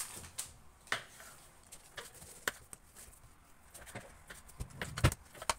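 Scattered light clicks and taps of a knife blade meeting the countertop as a log of bread dough is cut into pieces, with a duller thump a little after five seconds in.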